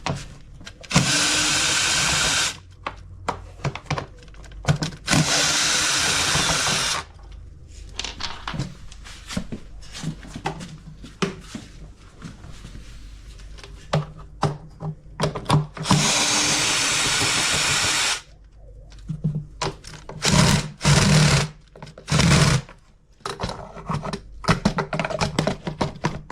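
Power drill-driver with a 10 mm socket on an extension running in short runs, unscrewing the bolts around a washing machine's tub. There are three steady runs of about two seconds each, then a few shorter bursts near the end, with tool clicks and knocks in between.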